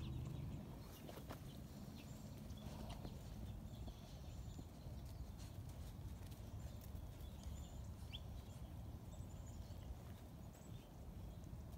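Quiet outdoor background: a low rumble with scattered light taps and clicks of footsteps on dry grass as the phone is carried.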